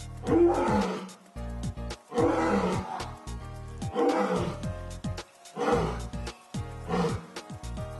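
A 24-year-old lioness roaring: five deep calls, each falling in pitch, coming about every two seconds, with the last ones shorter and closer together.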